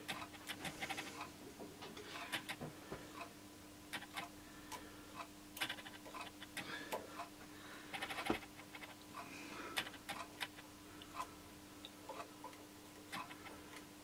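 Faint, irregular small clicks and ticks of fingers handling a handlebar-mounted dip switch and turning its clamp screw through by hand, over a faint steady hum.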